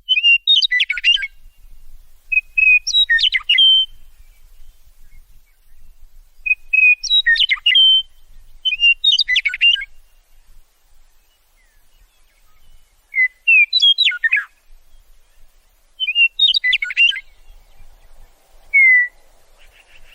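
Meadowlark singing: six short songs a few seconds apart, each opening with clear whistled notes that break into a quick jumble. A single slurred note sounds near the end.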